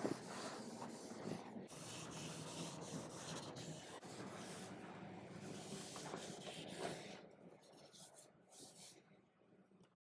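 A bare hand rubbing across the wooden apron of a refinished table: a faint, dry swishing of skin on wood in irregular strokes, fading out over the last few seconds and stopping just before the end.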